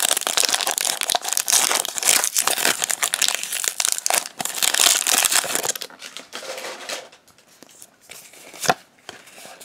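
Foil Pokémon TCG booster pack wrapper crinkling and tearing open, for about six seconds. Then quieter handling of the cards, with one sharp tap near the end.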